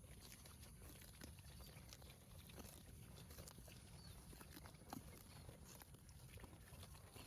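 A cow grazing: faint, irregular crunches and tearing of grass as it bites and chews.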